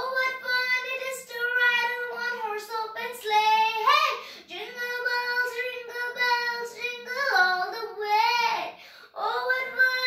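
A young girl singing solo, holding long notes in connected phrases, with a brief pause for breath about nine seconds in.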